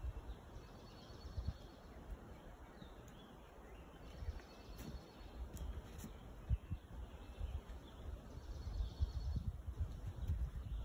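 Outdoor ambience: an irregular low rumble with soft bumps, and faint bird chirps now and then.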